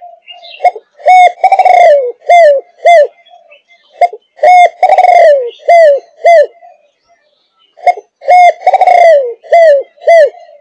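A five-and-a-half-month-old spotted dove of the Malaysian 'thúc gù' cooing line cooing loudly, close up. Three coo phrases, each a run of short coos with one longer note that falls in pitch, come about every three to four seconds.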